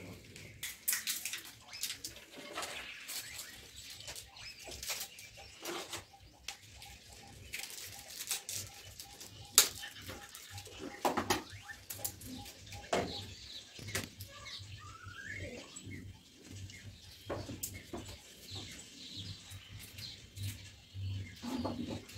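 Scattered rustles and small clicks of medical supplies being handled: a plastic kit box, packaging and a syringe being readied. One click a little before the middle is sharper than the rest, and a few faint rising chirps sound later on.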